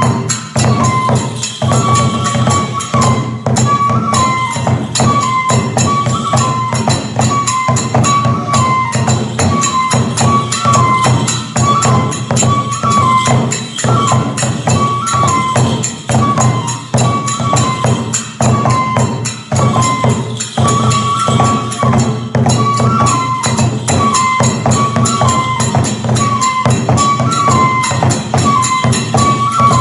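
Iwate kagura music: a bamboo flute repeats a short high melody over rapid, steady taiko drum strokes and jangling hand cymbals.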